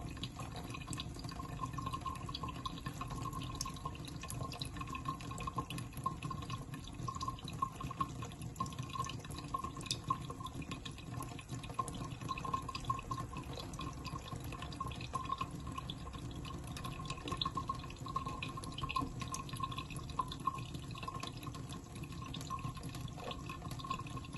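A thin stream of water trickling from a tap, with many quick wet ticks and splashes as two cats lap at the stream with their tongues.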